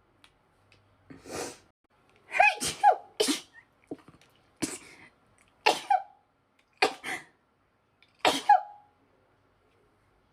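A woman in a sneezing fit: a short breath in, then about six loud sneezes in quick succession, roughly a second apart.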